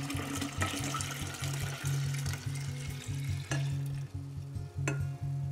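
Strained fermenting apple-scrap liquid pouring in a stream into a large glass jar, splashing and frothing. The pour thins out about three and a half seconds in, followed by a couple of light clinks of glass. Background music plays throughout.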